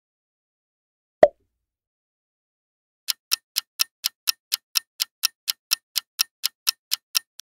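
A single short pop about a second in, then a countdown-timer ticking sound effect: sharp, evenly spaced clock ticks, about four a second, starting about three seconds in and stopping just before the end.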